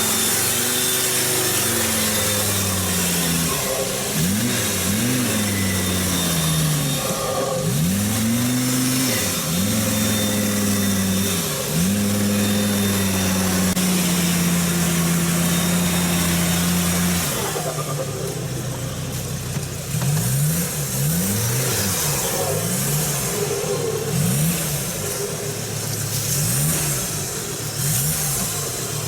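Diesel engine of the "Besta Negra" off-road vehicle revving up and down again and again as it works through mud. About halfway it holds at high revs for several seconds, then goes back to quick revs one after another.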